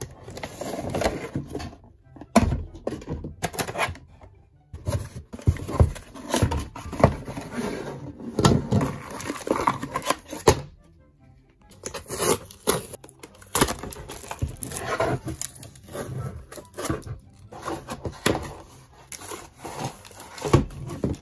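Cardboard box and plastic packaging being handled: irregular rustling and crinkling with light thunks as toy pieces are lifted out, over background music.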